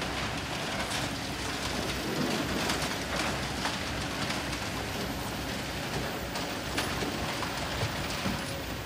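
Kobelco SK200 excavator's diesel engine running steadily while sand and gravel pour from its bucket onto a sloping metal sieve screen, with a dense, continuous patter and rattle of grit and stones, heaviest in the first few seconds.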